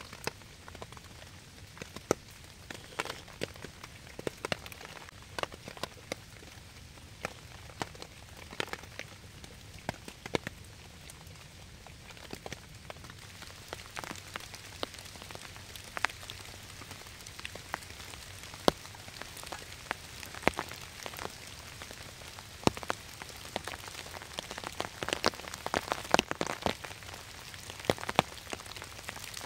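Rain falling in a forest: a steady hiss with many irregular sharp drop strikes close by, a little thicker near the end.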